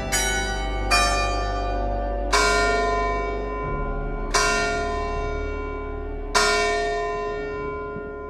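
A church tower bell struck five times, each stroke ringing on and fading slowly. The first two strokes are about a second apart and the rest about two seconds apart.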